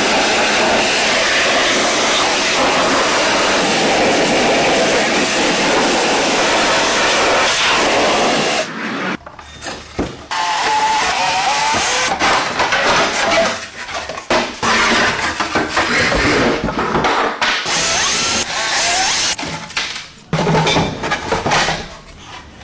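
Workshop tool noise from bike restoration work. A steady, dense noise runs for about the first eight seconds, then gives way to a series of short, choppy tool sounds that start and stop abruptly.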